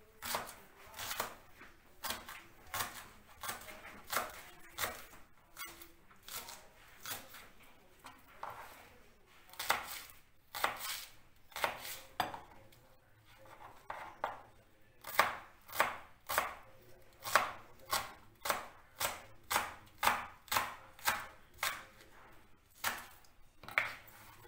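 Knife chopping onion on a cutting board, about two cuts a second, with a brief lull just past the middle. The cuts are steadier and louder in the second half.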